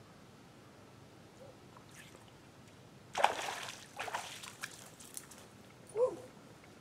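Water splashing as a hooked fish thrashes at the pond surface and is pulled out on a hand line, with one loud splash about three seconds in and smaller splashes after it. A short sharp sound follows near the end.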